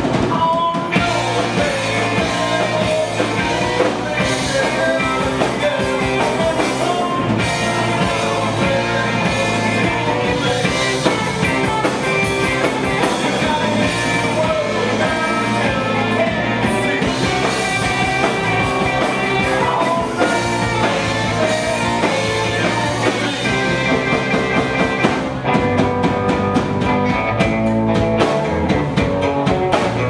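A rock band playing live: a male singer's vocals over electric guitars, bass guitar and a drum kit, loud and steady throughout. The sound changes about 25 seconds in.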